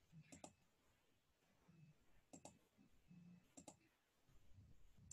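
Near silence broken by three faint pairs of sharp clicks, about a second in, again near the middle and once more a little later.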